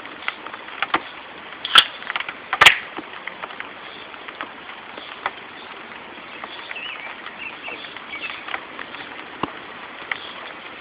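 Steady rain pattering, with scattered light ticks and two sharp knocks about two and three seconds in.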